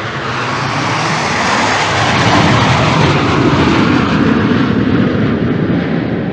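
Canadair CT-114 Tutor jet trainer's single turbojet engine, a loud rushing jet noise that swells to a peak about two to three seconds in and then slowly eases.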